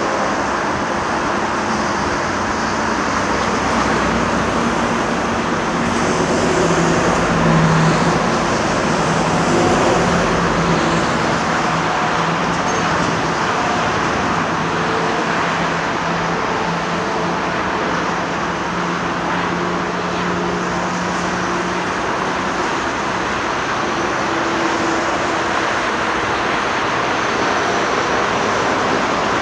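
Steady motorway traffic noise, with a low diesel engine hum from construction machinery rising through the middle stretch.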